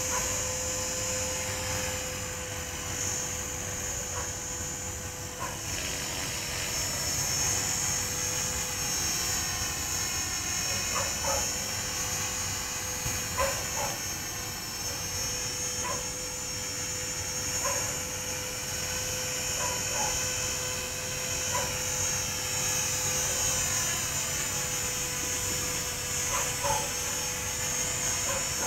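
Walkera Creata 400 electric RC helicopter hovering: a steady motor and rotor whine whose tone shifts up and down as the helicopter moves about. Short sharp sounds break in over it every few seconds.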